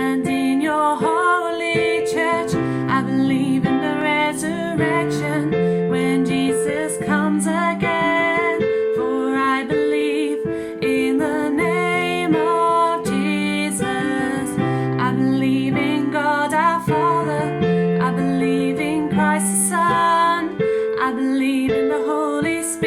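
A woman singing a worship song of faith, accompanied by piano chords.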